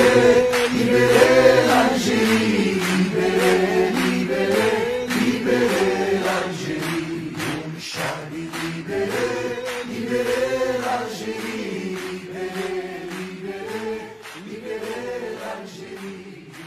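Group of male voices singing together in chorus over steady hand claps. The song fades out toward the end.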